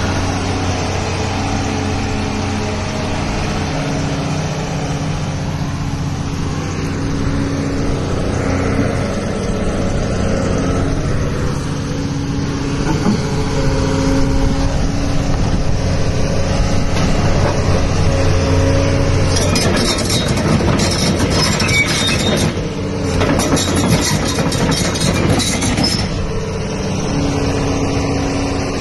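Diesel engine of a Doosan DX225LCA hydraulic excavator running steadily. From about 20 to 26 seconds in, a harsh rattling, scraping noise joins it, with a short break partway through.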